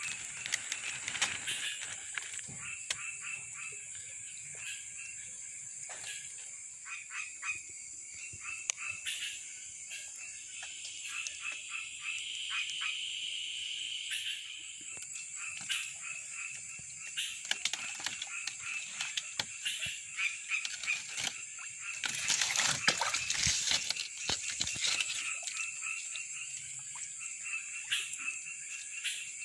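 Night swamp chorus of frogs calling in many short repeated notes over a steady high-pitched insect drone. A burst of louder noise comes about three quarters of the way through.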